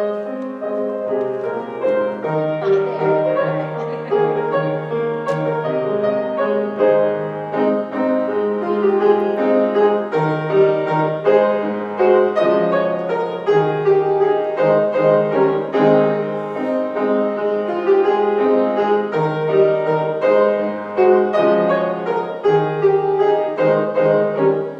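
Grand piano played solo: a flowing melody over sustained chords that change about once a second.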